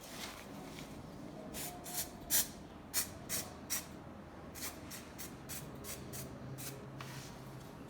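A series of short, hissy scrapes and rubs from broken hard-plastic vacuum cleaner parts being handled and fitted together for gluing.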